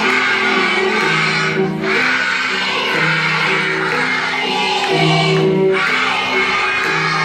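A group of children singing a song together over backing music.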